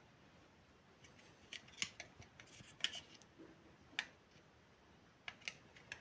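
Sharp clicks and light metallic knocks of a stainless-steel Polaris PWK 1729CA electric kettle's lid being opened and lifted off by hand: a cluster of clicks in the first half, one louder click about four seconds in, and a few more near the end.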